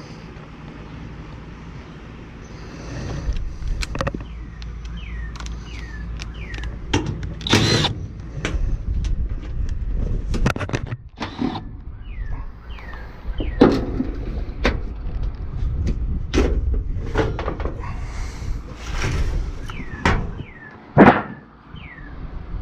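Scattered clicks, knocks and metal rattles of hands and tools working on an air-conditioner outdoor unit, over a steady low rumble. Short high falling chirps, like a bird's, come in at intervals.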